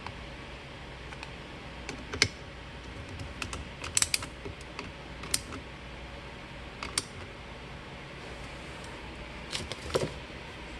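Scattered sharp clicks and taps of a screwdriver, screws and plastic parts being handled while a water softener's control valve is put back together, over a steady low hum. The clicks come singly, with quick clusters about four seconds in and again near the end.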